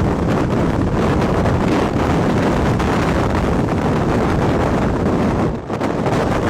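Strong wind buffeting the microphone: a loud, steady rushing noise that dips briefly about five and a half seconds in.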